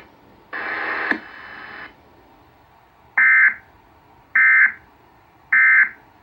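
Emergency Alert System end-of-message (EOM) signal: three identical short bursts of warbling high-pitched data tones, about a second apart, marking the end of the alert, heard through a late-1970s Panasonic Quintrix II television's speaker. Before them, about half a second in, a second-long stretch of noise.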